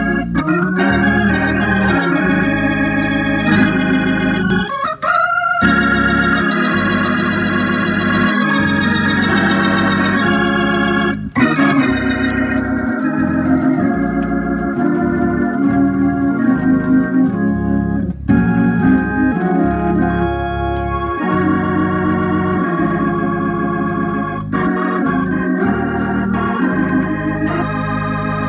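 Hammond A100 tonewheel organ played through a Leslie speaker: sustained chords and melody lines, with brief breaks between phrases about five and eleven seconds in.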